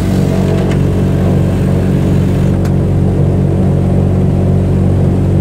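Douglas DC-6's Pratt & Whitney R-2800 radial piston engines running steadily during a ground run-up, heard from inside the flight deck as a loud, even drone.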